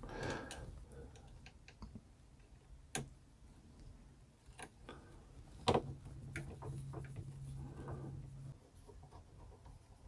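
Sparse sharp clicks and snips of side cutters cutting zip ties and handling cables on a 3D printer's carriage, the loudest about three and about six seconds in. A faint low hum follows the second for a few seconds.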